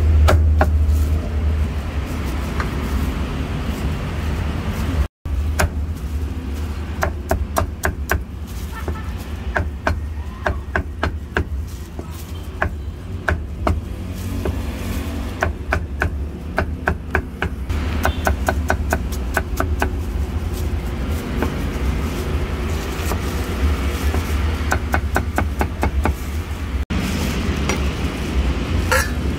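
Heavy cleaver chopping roast duck on a chopping block: irregular quick runs of sharp chops, often several a second, over a steady low hum.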